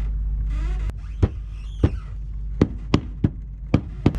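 A deck hatch being refitted with a new acrylic lens and frame: sharp clicks and knocks as the pieces are pressed and snapped into place, about seven in three seconds, with a short squeak between the first two. A steady hiss drops away about a second in.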